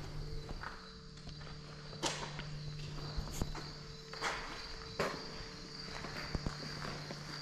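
Slow, uneven footsteps scuffing on a concrete floor strewn with leaves and grit, a step every second or so, over a steady high-pitched insect trill.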